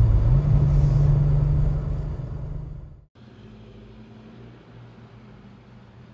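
Air-cooled 4.0-litre flat-six of a Singer-restored Porsche 911 running at a steady note as the car drives away, fading over about three seconds. The sound then cuts off abruptly to a much quieter, steady low engine rumble.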